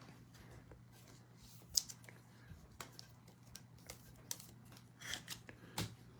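Trading cards and their packaging being handled: scattered light clicks, snaps and rustles, the sharpest about two seconds in and a busier patch of rustling near the end, over a faint steady hum.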